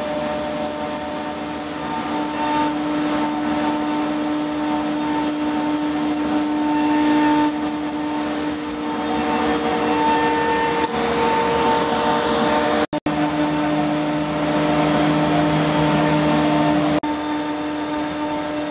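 CaMaster CNC router carving wood: the spindle gives a steady high whine and hum over the rush of dust extraction, and its tone shifts a few times as the bit moves through the cut. The sound cuts out for a split second about two-thirds of the way through.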